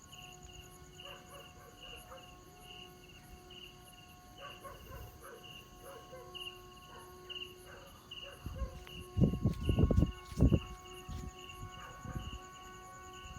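Vietnamese kite flute (sáo diều) of the train-whistle kind, sounding a steady chord of several held whistling tones, with a higher tone pulsing about twice a second. Between about eight and twelve seconds in, loud low thumps of wind buffeting the microphone cover it.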